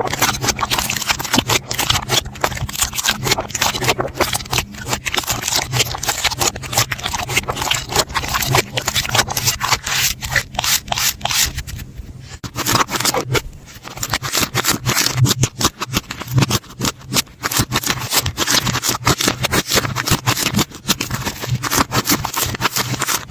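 Slime being squeezed and worked by hand, giving a dense, continuous crackling and clicking, with a couple of short lulls about halfway through.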